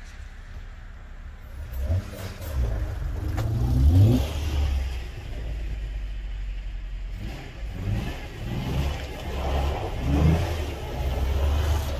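Jeep Wrangler engine revving as it drives off through snow. It is quiet for the first couple of seconds, then revs up sharply to a peak about four seconds in, runs steadily, and surges again in several bursts in the second half.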